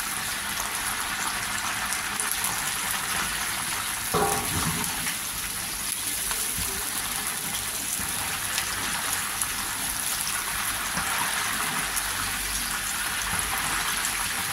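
Spiced chicken pieces deep-frying in hot oil: a steady sizzle with scattered small crackles. A brief louder sound, like a clink or a short voice, comes about four seconds in.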